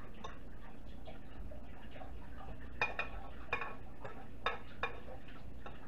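A metal fork scraping and tapping inside a small metal saucepan as garlic butter is scooped out. Light scrapes are followed, from about three to five seconds in, by a handful of sharp, ringing clinks.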